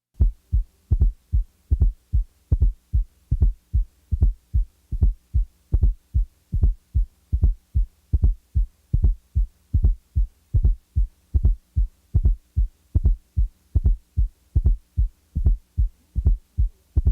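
Simulated heart sounds with a fourth heart sound (S4, atrial gallop): a low, dull sound just before each first heart sound, dropped from the rhythm and then added back again. The beats come as a steady run of short low thumps over a faint steady hum.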